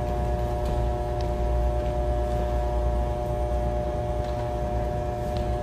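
Steady room hum with a low rumble and several constant tones underneath, with a few faint clicks.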